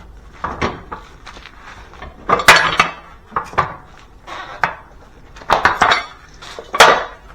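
Metal clattering and scraping as a floor jack is pulled out from under the car, with a few loud clanks about two and a half seconds in, around six seconds and near the end.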